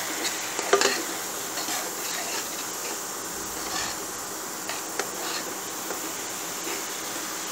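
A spoon stirring and scraping through a simmering onion-tomato masala in a kadhai, over a steady sizzle from the pan, with a few sharp clicks of the spoon against the pan's side.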